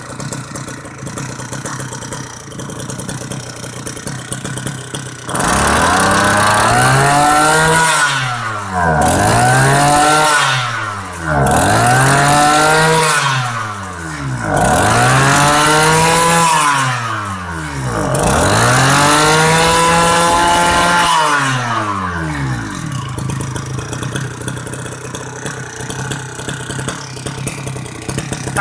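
Mitsubishi T240 brush cutter's two-stroke engine with a 44 mm piston, idling, then revved hard five times, each rev rising and falling back over about three seconds, before settling to idle again. It is running on the last little bit of fuel in its tank.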